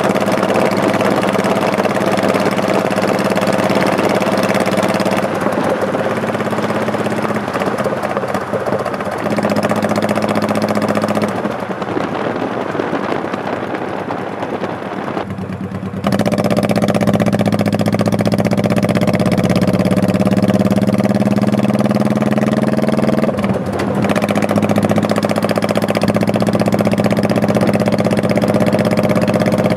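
Honda Shadow Spirit 1100's V-twin engine running under way. It eases off and goes quieter for a few seconds in the middle, then pulls harder with the pitch gliding, broken briefly a few seconds later.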